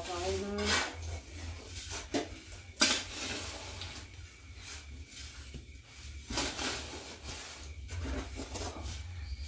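A shovel and hand scoops scraping and scooping through a pile of grey powder on a dirt floor, in a string of separate strokes with a low hum underneath.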